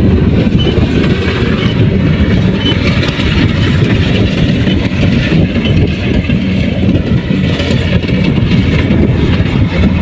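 Kubota rice combine harvester running steadily: a loud, unbroken diesel engine rumble with the noise of the machine working.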